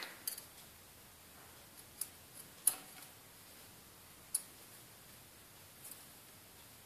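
About five light, sharp clicks spread over several seconds, the loudest about two and a half seconds in: a thin metal pick working small rubber O-rings off the metal end of a dental curing light's light guide.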